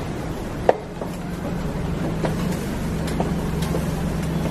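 Metal tongs clinking against noodle strainer baskets in a large aluminium stockpot of boiling water: a few sharp clinks, the loudest a little under a second in, over a steady low hum.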